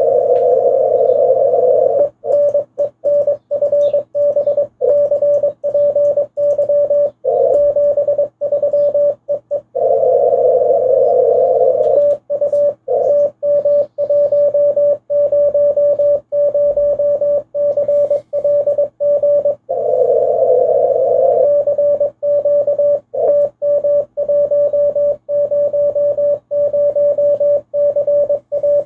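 Morse code (CW) from a ham radio transceiver: a steady mid-pitched tone keyed in quick dots and dashes, sending "R R FB CPY 73 E E TU TM100CLG" to end a contact and then a CQ call for TM100CLG. Three short stretches of hiss in the same narrow band break up the keying.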